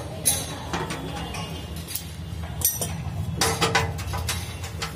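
Metal spanner clicking and clinking on the bolts of a Mercedes ML 250 CDI's engine undershield as they are loosened, in irregular sharp clicks with a quick run of them near the end, over a steady low hum.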